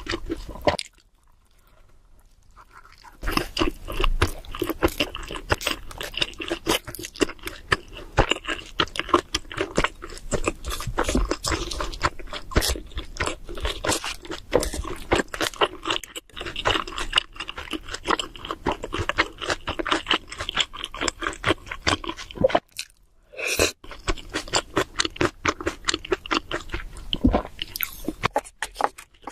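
Close-miked chewing of cheese seafood pizza: a dense run of wet smacks and crunches, steady except for a quieter pause of about two seconds near the start and a short break near the end.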